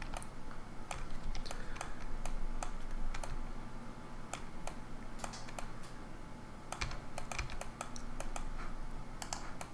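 Irregular clicks of a computer mouse and keyboard being worked, some coming in quick runs, over a faint steady hum.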